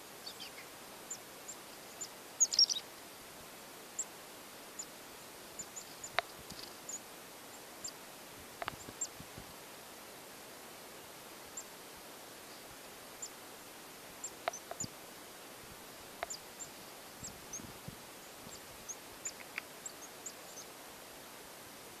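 Black-capped chickadees giving short, high, thin call notes scattered throughout, with a louder burst of calls about two and a half seconds in. A few sharp clicks sound over a faint steady hiss.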